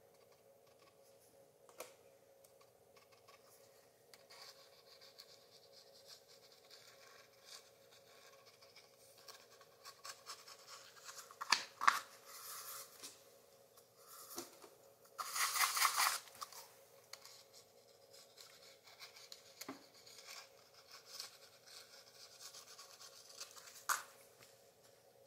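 A small metal scoop scraping and tapping as coloured sand is spooned into a glass sand-art frame: soft scratching and scattered sharp clicks, with a denser scraping rattle of about a second and a half past the middle as the loudest sound, over a faint steady hum.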